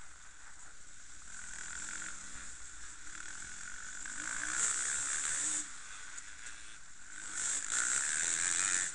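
Enduro dirt bike engines buzzing along at riding speed, heard through a small on-bike camera microphone, with two louder surges about halfway through and near the end.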